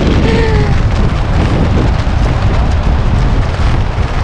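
Strong wind buffeting the microphone: a loud, unbroken low rumble with a rough hiss over it.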